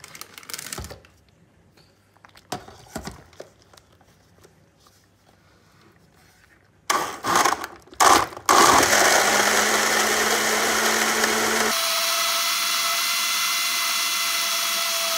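Blend Active personal blender blending frozen mixed berries with milk and protein powder. It starts about seven seconds in, after a few knocks from the bottle being handled: a few short pulses, then steady running. A few seconds later the low rumble drops away and it settles into a steadier, higher hum as the berries break down.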